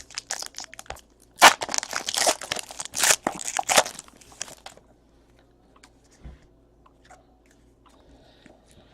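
Trading card pack wrappers crinkling and tearing as packs are opened, busy for the first five seconds, then dying away to a few small clicks.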